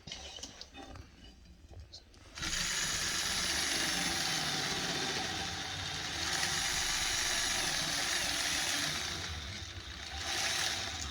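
Lego Technic XL motor driving a geared-up train of plastic gears, whirring steadily as it spins a chopping blade at high speed. It starts suddenly about two and a half seconds in, after a few light clicks, and drops briefly near the end before picking up again.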